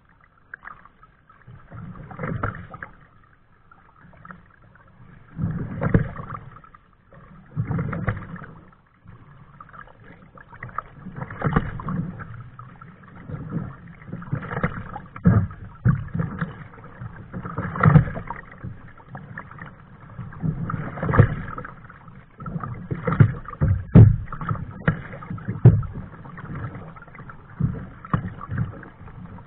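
Kayak paddle strokes splashing in the water, a swell of splashing about every two to three seconds, with a few sharp knocks mixed in.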